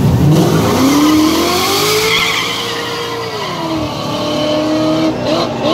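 A G-body drag car and a second car launch together from a standing start at full throttle. The engine note climbs steadily for about three seconds, drops at a gear shift, then climbs again as the cars pull away.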